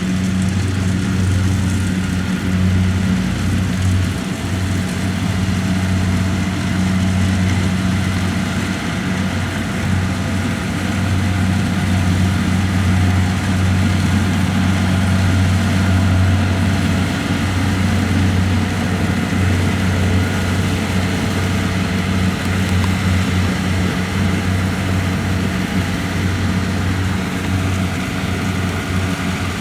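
Combine harvester's diesel engine running steadily with a constant, unchanging hum.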